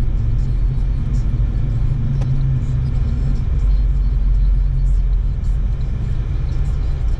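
A car's engine and road noise heard from inside the cabin while driving, a steady low rumble.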